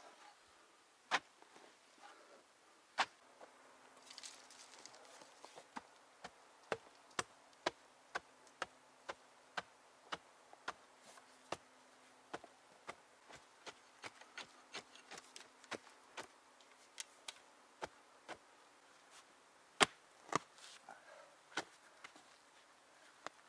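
Repeated sharp knocks of hand-tool work, about two a second, with a few louder strikes near the start and near the end. A faint steady hum runs beneath the knocks through the middle.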